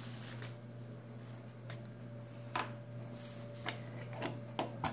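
Light clicks and taps of silver bullion coins in clear plastic sleeves being handled and set down on a wooden table, a few scattered taps that come closer together near the end, over a steady low hum.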